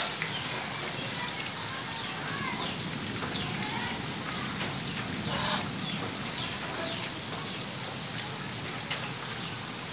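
Steady rain falling on a puddle and wet ground, with a few light splashes. A bird in the background gives a short falling chirp every second or so.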